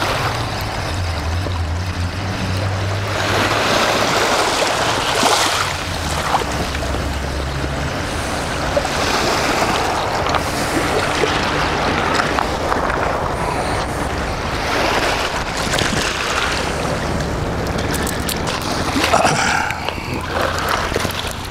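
Sea waves washing ashore, swelling and easing every few seconds, with wind rumbling on the microphone.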